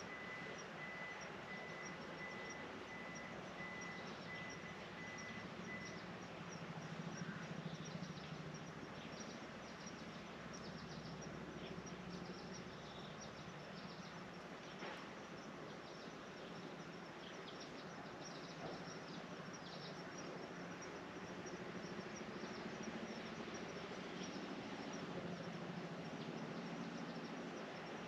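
Steady rain falling in a garden, with crickets chirping in quick high pulses throughout. A steady high trill sounds over it and stops about six seconds in.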